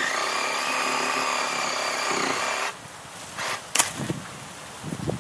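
Sawzall reciprocating saw running as it cuts into a small tree's wood, a steady motor whine that cuts off suddenly about two and a half seconds in. A sharp click and some rustling follow.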